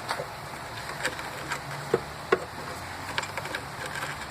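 Irregular light metallic clicks and taps, the two sharpest about two seconds in, as the hook of a battery hold-down rod is fished around against the battery tray for its hole.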